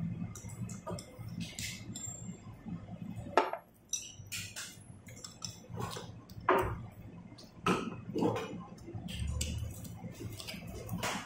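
Tableware clinking during a meal: wooden chopsticks tapping and scraping white ceramic rice bowls and plates, with a dozen or so short, sharp clinks at irregular intervals.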